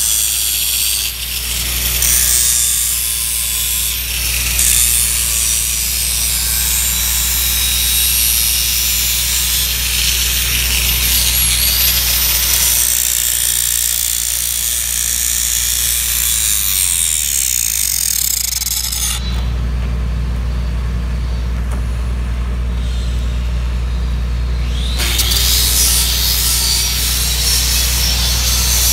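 Electric angle grinder with a grinding disc running against the bevelled end of a steel pipeline joint, grinding a flat landing onto the bevel and taking off rust. The grinding stops for several seconds past the middle, leaving a low steady rumble, then starts again near the end.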